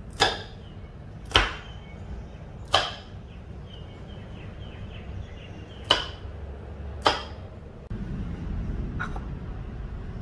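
Kitchen knife chopping Chinese long beans into short pieces on a thick wooden chopping board: five sharp chops, mostly a second or so apart with a longer gap in the middle, each with a brief ring.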